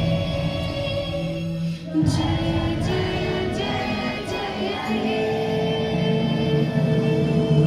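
A choir singing a song with musical accompaniment, holding long notes near the end.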